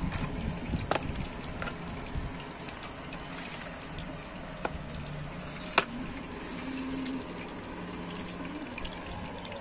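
Steady sizzling of fish frying in oil under the lid of a small electric frying pan, with a few sharp clicks of metal tongs against a plastic bowl, the loudest about six seconds in.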